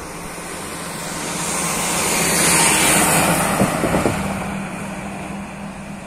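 A road vehicle driving past, its engine and tyre noise swelling to a peak about halfway through and then fading away.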